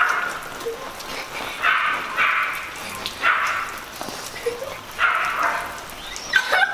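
Dog barking repeatedly, in short barks roughly a second apart.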